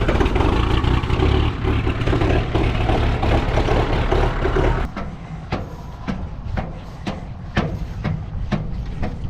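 A farm diesel engine running steady and loud, cutting down sharply about five seconds in. It is followed by a series of sharp metallic clanks, roughly two a second.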